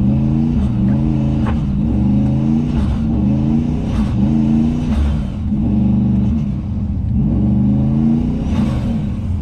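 Turbocharged 6.0-litre V8 of a GMC 2500HD pickup revving up and falling back several times in succession, under boost on a snowy road.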